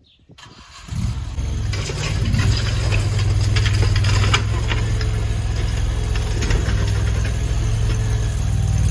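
The 739cc gasoline engine of a mini stand-on skid steer loader catches about a second in and then runs steadily, with metallic rattles and clicks over it.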